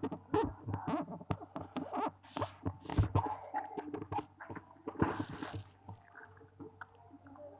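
Close-up eating sounds: irregular mouth clicks and smacks of chewing, with a few short rustling hisses, the longest about five seconds in.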